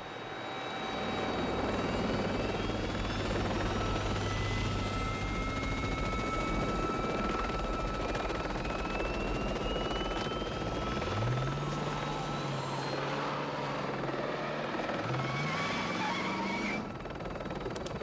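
Helicopter rotor and turbine noise that builds up about a second in and runs loud with a slow rising whine. The level drops suddenly near the end.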